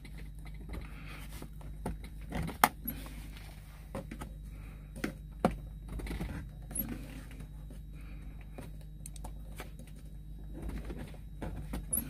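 Irregular plastic clicks and knocks as a USB charger socket is pushed and worked into a tight, trimmed hole in a semi truck's plastic dash panel, the sharpest click about two and a half seconds in, over a steady low hum.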